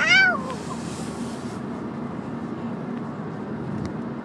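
The end of a high, wavering sung note that slides down in pitch and stops about half a second in, followed by a brief hiss and a steady low hum.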